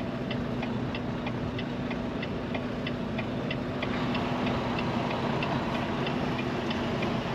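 Semi truck's engine running at idle while the truck reverses slowly, heard from inside the cab, with a steady light clicking of about three clicks a second, softer in the second half.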